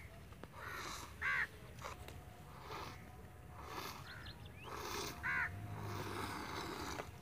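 Goat being hand-milked: milk squirting from the teats into a steel glass in soft hissing strokes about once a second. A bird caws sharply twice, about a second in and again past the five-second mark, louder than the milking.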